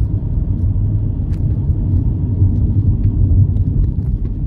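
Steady low rumble of a car's road and engine noise heard from inside the cabin, easing slightly near the end as the car slows for a stop sign.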